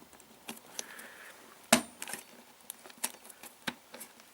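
Irregular sharp clicks and taps of small plastic parts being handled: a blade fuse and the fuse box it plugs into. There are about eight clicks, with one louder snap a little before halfway.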